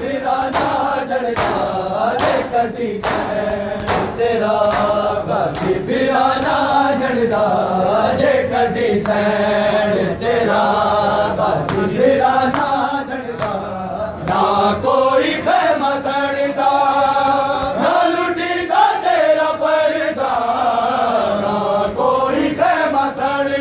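Many men's voices chanting a Shia noha lament together, with rhythmic chest-beating (matam) slaps keeping time, a little more than one a second, clearest in the first several seconds.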